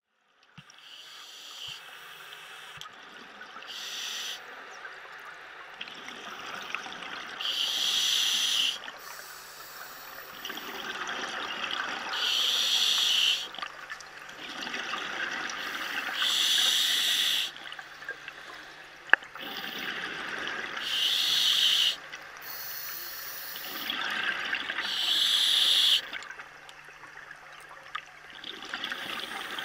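Open-circuit scuba regulator breathing underwater: a softer hiss on each inhalation, then a loud gush of exhaled bubbles, about every four seconds. A faint steady hum runs underneath, and there is one sharp click about two-thirds through.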